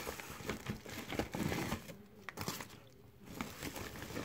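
Plastic mailer bag crinkling and rustling as hands work it open and reach inside, busiest in the first three seconds and then dying down to a few scattered crackles.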